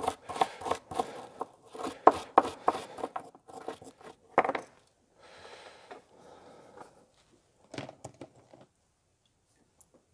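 Wire brush scrubbing a small brass lantern burner cap on a wooden bench, quick scraping strokes about three a second, to clean off the pinkish tint left by a vinegar soak. About halfway through, softer rubbing with a cloth takes over; the scraping dies away and it goes quiet near the end.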